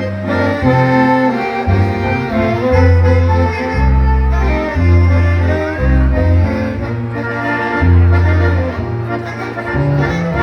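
A dance band playing a waltz: a melody of held notes over strong, sustained bass notes.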